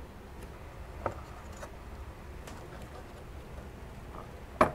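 Faint plastic clicks and taps as a small battery socket is handled and pressed onto a computer motherboard, with two sharp clicks close together near the end. A low steady hum runs underneath.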